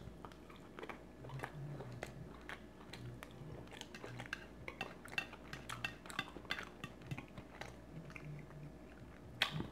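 Cutlery clicking and scraping against a plate while eating, with quiet chewing; one louder clatter near the end.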